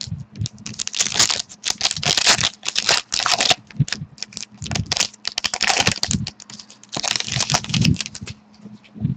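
Crinkling and rustling of a trading card pack wrapper and cards being handled, in dense irregular bursts of crisp clicks, over a faint steady low hum.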